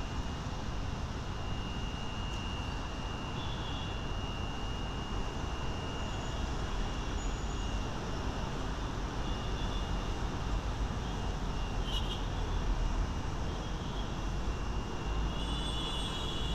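Steady rumble of a slow passenger train pulling away, mixed with road traffic, under a constant thin high whine; a deeper rumble swells near the end.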